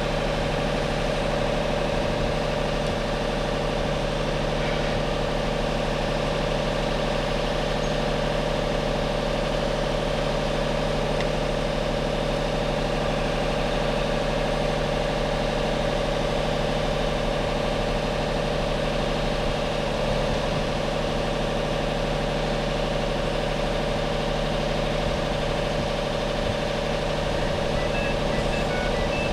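Heavy crane's diesel engine running at a steady idle, with a steady hum and a tone near the middle of the range.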